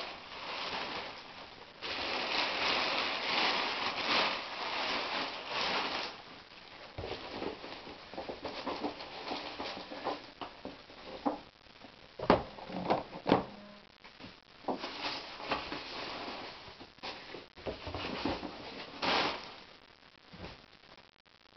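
Shipping packaging being handled and opened: rustling and crinkling of plastic bags and packing, with a few sharp knocks about halfway through.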